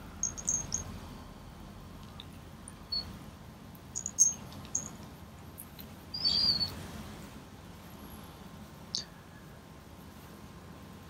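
A small bell on a kitten's collar tinkling in short, high, scattered jingles as the kitten squirms while being stroked, over a soft rustle of the quilt, with the loudest jingle about six seconds in.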